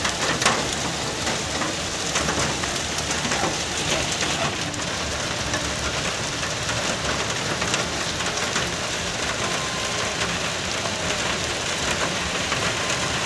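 Heavy rain falling steadily, an even hiss with scattered sharp ticks of drops striking hard surfaces.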